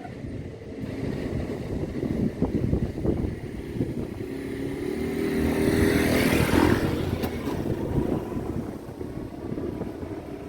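A road vehicle drives past with its engine note rising, loudest about six to seven seconds in, over a steady low rumble.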